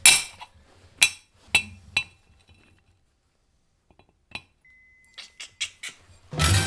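Steel parts clinking against a cast-iron brake rotor as they are handled and set in place: four sharp clinks in the first two seconds, a single clink a little after four seconds, then a quick run of lighter clicks.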